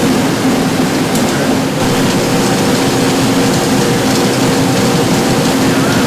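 Pilot-scale sifter and air aspirators running continuously: a steady mechanical rush with a low hum of a few held tones.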